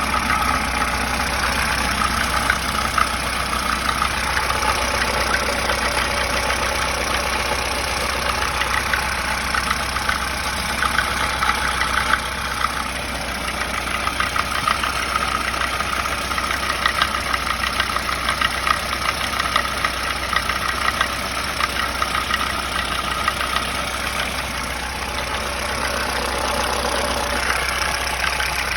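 VAZ 2107 four-cylinder petrol engine idling steadily with a fast, even knock running through it, the engine knock that the owner is recording.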